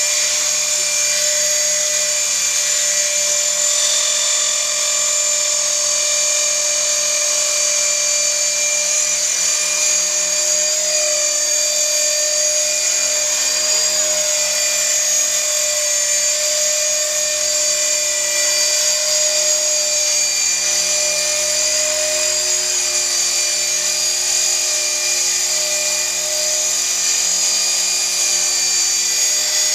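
EXI 450 CF Pro electric RC helicopter hovering low, its Exceed RC Helium 2210 brushless motor and drive gears giving a steady high whine over the hum of the spinning rotor. The pitch wavers slightly as the pilot holds the hover.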